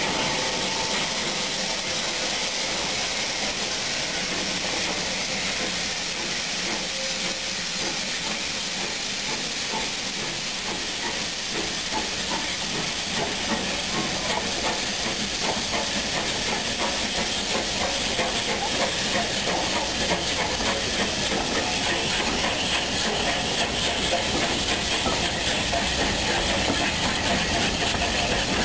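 Bulleid West Country class steam locomotives standing in steam, hissing steadily. In the second half the clatter of a train on the rails builds and gets a little louder.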